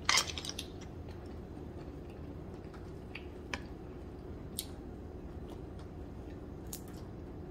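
Quiet eating close to the microphone: scattered soft clicks and mouth noises as rice is picked up by hand and chewed, a small cluster near the start and single ticks later, over a low steady room hum.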